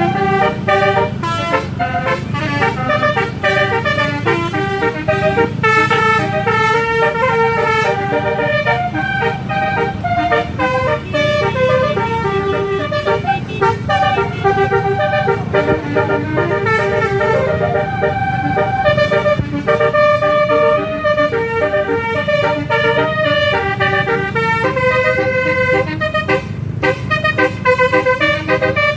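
Bus 'basuri' telolet horns playing a continuous melody, note after note, over the low running rumble of the bus engines.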